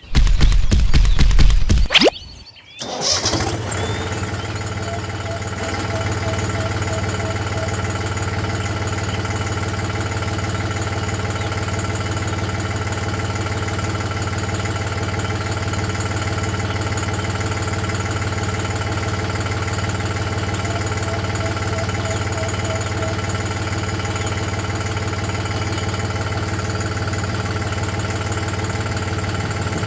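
An engine starts with a loud burst in the first two seconds, then settles into steady running at an even pitch.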